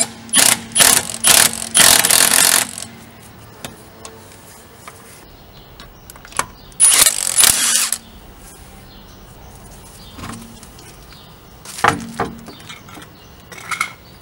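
Impact wrench hammering lug nuts loose on a car wheel: several short bursts in the first couple of seconds, a longer burst about seven seconds in, and another short burst near the end.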